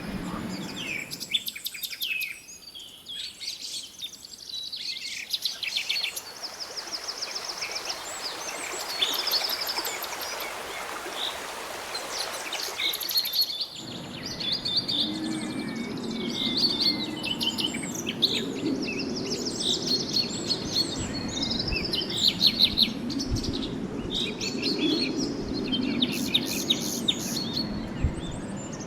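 Several birds chirping and singing in short trills over a steady background hiss. About halfway through the ambience changes abruptly to a busier chorus of calls with a low rumble underneath.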